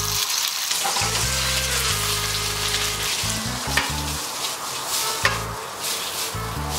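Raw shredded pork sizzling hard as it is tipped into a hot oiled wok, then stir-fried, with a few sharp clinks of the spatula against the wok.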